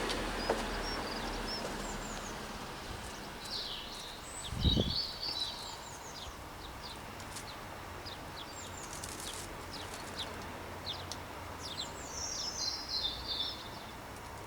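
Small birds chirping in two bouts of quick high calls, with a single dull thump about five seconds in.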